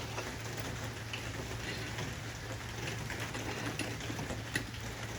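A few scattered light metallic clicks from tire-changing tools working on a car wheel, over a steady background hiss.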